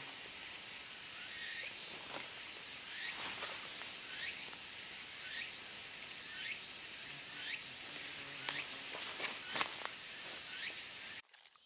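Steady high-pitched insect chorus from the pond-side woods, with short chirping calls repeating every second or so. It cuts off abruptly just before the end.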